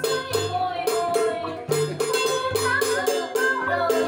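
Vietnamese traditional music: a đàn nguyệt (moon lute) plucked in a wavering melody over steady sharp percussion clicks, about three a second.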